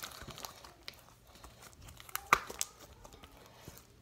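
Homemade slime squeezed and stretched between hands, giving irregular sticky crackles and pops, the loudest a bit over two seconds in.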